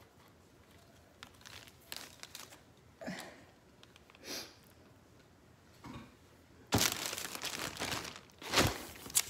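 Packaging crinkling and rustling as a garment is handled and unwrapped: a few soft rustles, then about two seconds of louder crinkling near the end.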